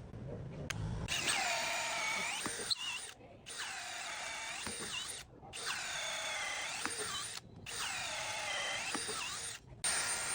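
Milwaukee 2904 cordless hammer drill's motor run in four bursts, each winding up to a steady whine for about two seconds and then stopping abruptly.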